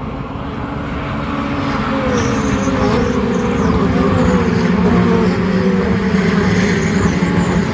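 Racing car engine at speed on track, growing louder over the first few seconds as it approaches, its pitch rising and falling several times.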